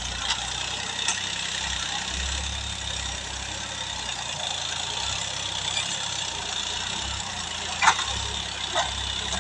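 Farm tractor's diesel engine running steadily as it pulls a cultivator through loose soil, with a few short sharp knocks, the loudest about eight seconds in.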